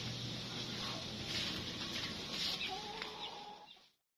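Free-range chickens clucking, a few short calls, fading out near the end.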